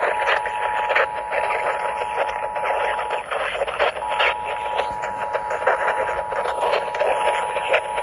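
Weather radio's speaker sounding the EAS two-tone attention signal, a steady two-note alert tone, heard over a loud rushing hiss. It breaks off for under a second about three seconds in, then resumes. It marks the start of a Required Monthly Test alert.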